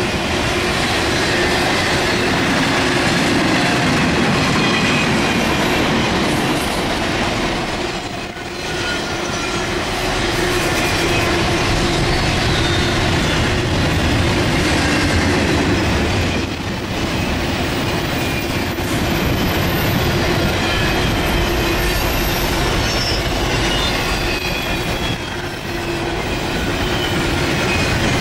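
Freight cars of an intermodal train rolling past at speed: a steady rumble and clatter of steel wheels on the rails, with thin high wheel squeals coming and going. The level dips briefly three times as the cars go by.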